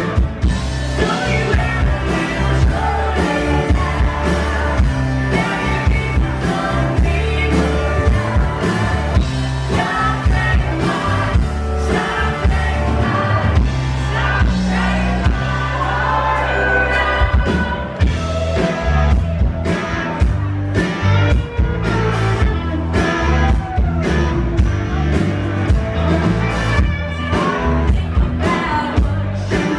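Live rock band playing, with a male and a female singer trading vocals over electric guitar, bass and a steady drum beat.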